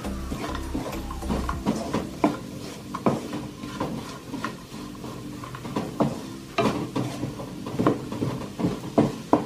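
Wooden spatula stirring and scraping crumbled tempeh around a non-stick wok, with irregular knocks of the spatula against the pan over a sizzle of frying.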